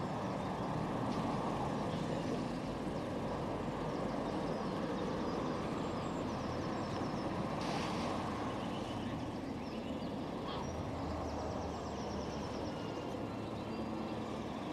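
Steady outdoor town ambience: a low, even rumble of distant road traffic, with faint high chirping now and then.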